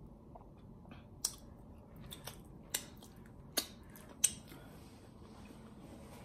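Mouth sounds of a person eating spare ribs: six sharp, wet lip smacks and mouth clicks between about one and four and a half seconds in, as she chews and licks sauce from her fingers, the last smack the loudest.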